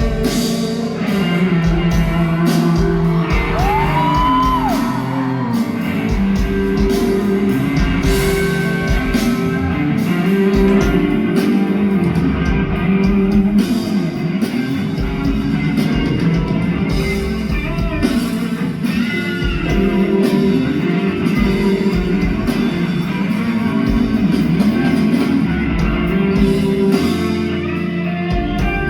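Live band music with guitar and drums, a loud, continuous rock-style passage with some singing and shouted voices.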